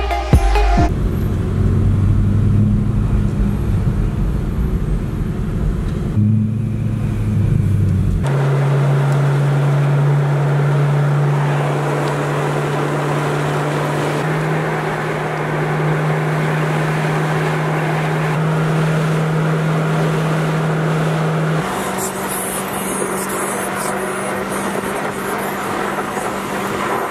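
BMW E90 M3's 4.0-litre V8 droning at steady cruising revs, heard from inside the cabin. Its pitch holds steady, then jumps to a new level a few times as driving clips change.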